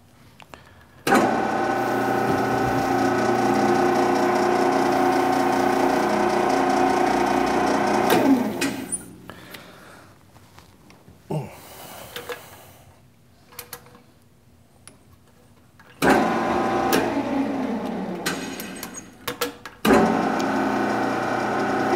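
Metal lathe's motor and gear train running at low speed, about 150 RPM, while a spiral point plug tap feeds itself into the part. The lathe starts about a second in and stops near the middle, slowing as it winds down. After a few knocks of handling, it runs again, stops briefly, and starts once more near the end.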